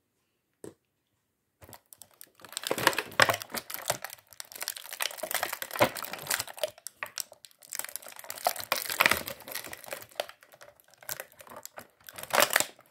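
Clear plastic packaging film crinkling and rustling as it is handled, with many small crackles. It starts after about a second and a half of quiet broken by one small click.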